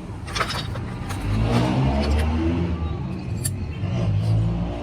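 A vehicle engine running, swelling louder twice, through the middle and again near the end, with a few sharp clicks near the start.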